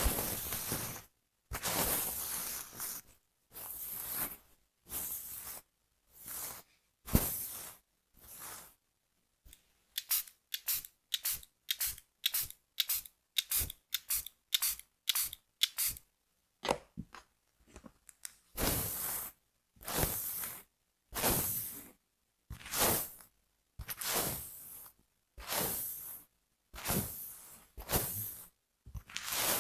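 Hairdressing scissors cutting hair close to the microphone, in separate cuts with silence between. A quick run of short snips in the middle is framed by slower, longer cuts before and after.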